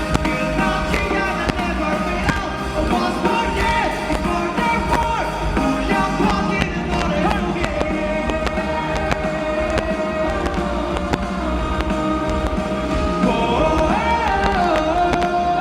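Live pop-rock band music, loud and continuous, heard from the audience: drums, bass and guitars with a sustained, bending melody line over them.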